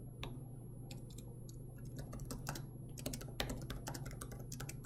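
Typing on a computer keyboard: an irregular run of keystrokes over a steady low hum.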